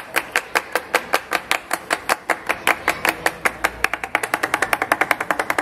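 Flamenco palmas: three performers clapping their hands together in a steady beat of sharp claps. The claps run at about five a second, then quicken to about twice that speed from about four seconds in.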